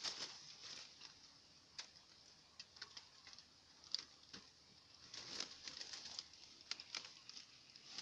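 Faint rustling and scattered light clicks of a wire-mesh cage trap being handled among dry leaves, with a few sharper ticks about 2, 4 and 6.7 seconds in.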